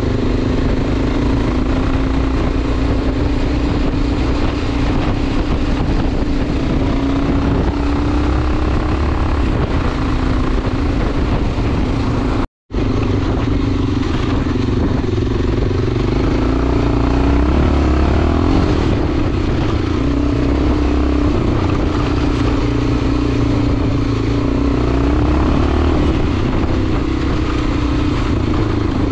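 Enduro motorcycle engine running steadily under changing throttle while riding, its pitch wavering up and down. The sound cuts out completely for a split second near the middle.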